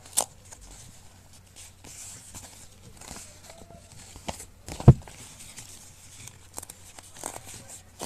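Paper tearing in short rips and crinkles as the perforated side edge of a Google AdSense PIN mailer is pulled off, with one loud thump about five seconds in.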